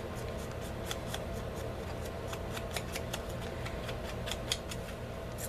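Light, irregular clicks and scratches of a paper index card being handled and its edges worked over with a black marker pen, over a steady low hum.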